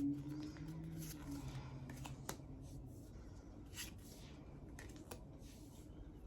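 Tarot cards being handled, with soft rustles and a few light clicks of card stock. A low hum fades out over the first few seconds.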